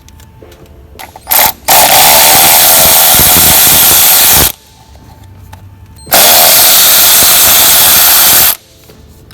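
A power tool runs at full speed in two long bursts of about two and a half seconds each, loud with a strong hiss, after a brief blip just over a second in.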